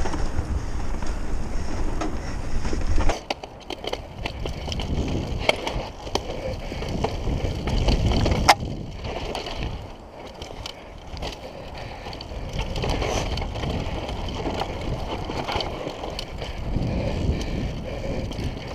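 Downhill mountain bike running fast down a dirt trail: tyre noise on the dirt, with scattered sharp clicks and rattles from the bike. Wind rumbles on the camera microphone, heaviest in the first three seconds.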